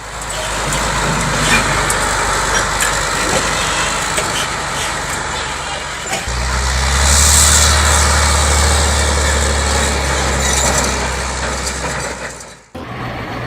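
Heavy truck engine running under load, its note turning deeper and louder about six seconds in, with a brief hiss of air shortly after. Near the end the sound cuts off suddenly to a different engine running steadily.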